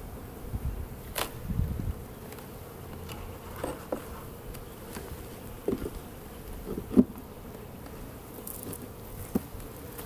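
Honeybees buzzing steadily around an opened hive while the wooden hive cover is set back on and worked into place. Several short wooden knocks come through, the sharpest about seven seconds in.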